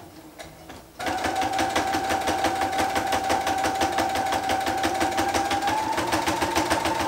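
Brother computerized domestic sewing machine starting about a second in and sewing at a steady pace: a motor whine under rapid, even stitching clatter, speeding up slightly near the end.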